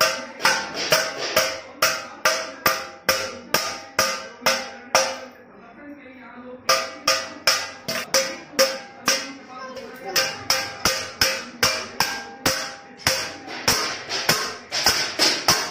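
Stainless-steel bowl beaten with a stick by a small child: sharp ringing metallic clangs about two to three a second, stopping for about a second and a half midway and then picking up again, a little faster near the end.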